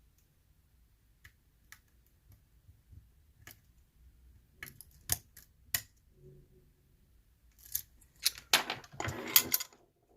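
Lock picks and tension tool working inside a challenge lock: faint scattered clicks at first, then sharper clicks and, near the end, a busy run of metallic clicking and rattling.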